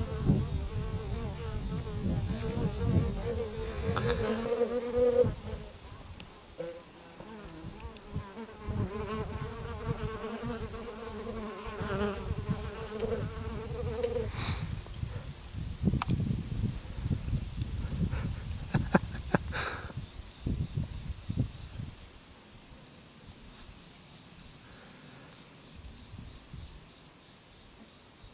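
Bees buzzing in flight close to the microphone: a wavering buzz that stops about fourteen seconds in, over a steady faint high insect chirping. A low rumble fills the first few seconds, and a few knocks come later on.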